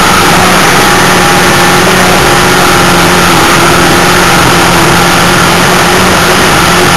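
Race car engine heard from inside its own cockpit while racing on a dirt oval, loud and steady, its pitch holding nearly level, with a heavy rush of noise over it.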